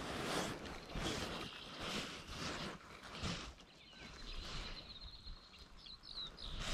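Soft rustling handling noise, with a bird calling in the background: a thin high note past the middle that ends in a few quick chirps.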